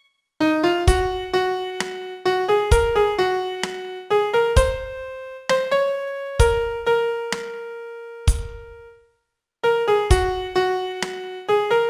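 Piano playing a song's vocal melody one note at a time, each note struck and fading, over a low thump about every two seconds. The music pauses briefly at the start and again for about half a second around nine seconds in.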